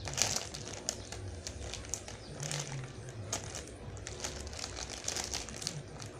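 Plastic crinkling and rustling in irregular short crackles as a squishy toy in its plastic wrapping is handled.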